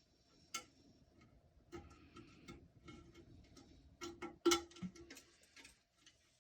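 Irregular light clicks and small knocks of toilet tank parts being handled and fitted, with one sharper knock about four and a half seconds in.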